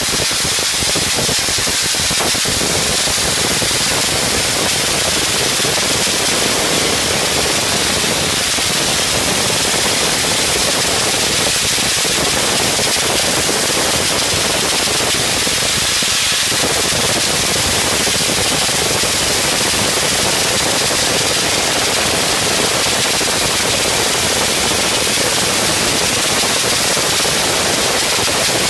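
Abrasive blast nozzle running continuously: a loud, steady hiss of compressed air and blasting grit.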